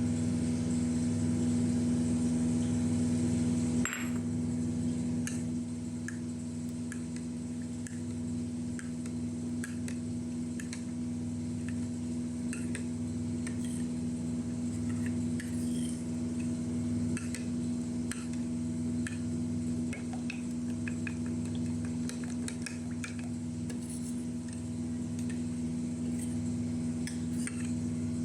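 A steady mechanical hum at one fixed pitch throughout, with light clinks and taps of utensils against cookware scattered over it and a sharper knock about four seconds in.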